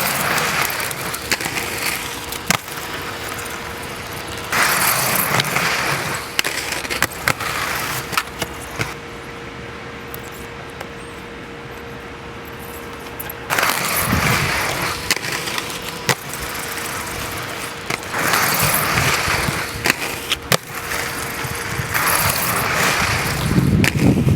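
Aggressive inline skates rolling on wet pavement in several passes, each with sharp clacks as the skates hit and grind a freshly waxed ledge.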